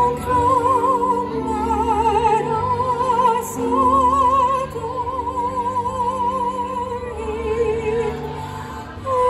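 Classical music: a solo operatic voice singing long held notes with a wide, even vibrato, over slow sustained low accompanying chords.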